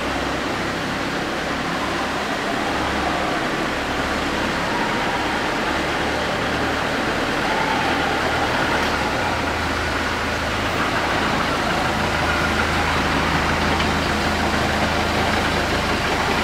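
Engine of a trackless tourist train running as the train drives along: a steady low hum that grows a little louder about halfway through as the train draws near.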